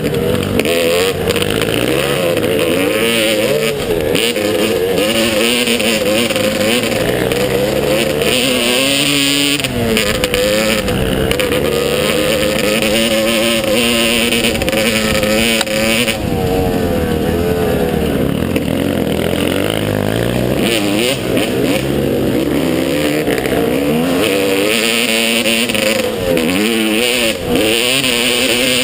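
Motocross bike engine running hard, its revs climbing and falling back again and again as the throttle opens and closes.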